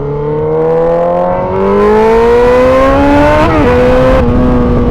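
2003 Yamaha R6's inline-four engine accelerating out of a corner, its revs climbing steadily, then dropping sharply about three and a half seconds in at an upshift and holding steadier.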